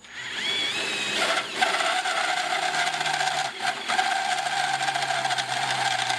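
Power drill running with a countersink bit, boring a countersunk screw hole in a steel plate. It spins up with a short rising whine, then runs steadily under load.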